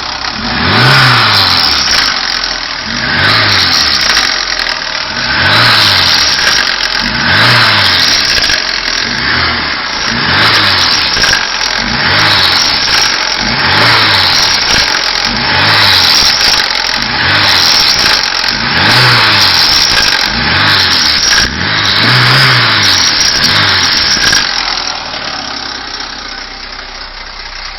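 VAZ-21214 Lada Niva's 1.7-litre four-cylinder engine revved again and again past 3000 rpm, about one rise and fall every second and a half, then dropping back toward idle near the end. It is revved to bring out an extraneous noise that has remained after new engine mounts, which the owner suspects is the single-row timing chain.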